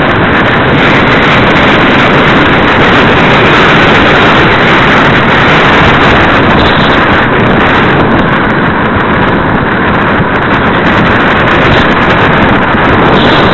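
Wind rushing and buffeting over the microphone of a handlebar-mounted camera on a tandem bicycle descending fast, a loud, steady rush.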